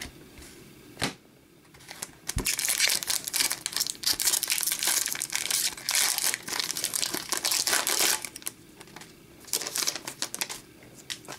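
Foil wrapper of a 2015-16 Upper Deck Series 1 hockey card pack crinkling as it is torn open and handled, from about two and a half seconds in to about eight seconds, with a few more crackles near the end. A single tap about a second in and a light knock just before the crinkling begins.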